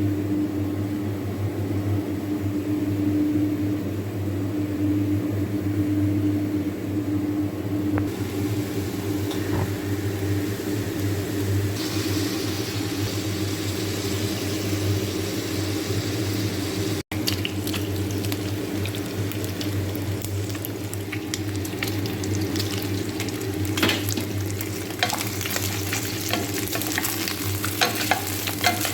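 Food sizzling in a cooking pan over a steady low hum. The sizzle grows brighter about twelve seconds in. After a brief cut, frequent clicks and scrapes of a utensil stirring in the pan join it, busiest near the end.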